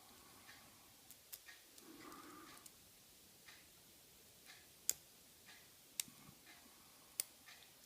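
Lock pick and tension wrench working the spool pins of a Tifon 50mm padlock during single-pin picking, with the lock in a false set. Faint scattered ticks, then three sharp clicks about a second apart in the second half.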